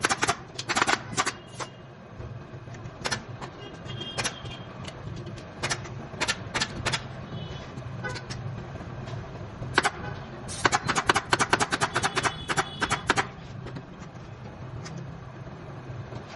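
Sharp clacks in irregular bursts, the densest rapid run about ten seconds in, over a steady low background hum.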